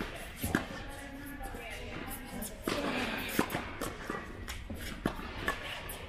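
Tennis ball being struck by rackets and bouncing on the court: several sharp knocks spaced irregularly, a second or two apart, over faint voices and music.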